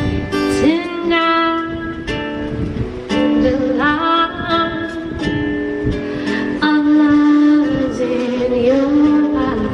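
A woman singing a slow song karaoke-style over a guitar backing track, her voice run through a V8 sound card and out of a small speaker. Her voice slides between long held notes.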